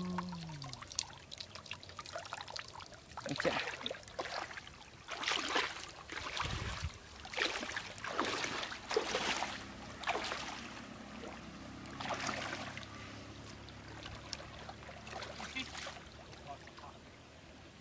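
Water splashing and streaming off a woven bamboo fish trap as it is hauled out of shallow, muddy water, in irregular splashes a second or two apart.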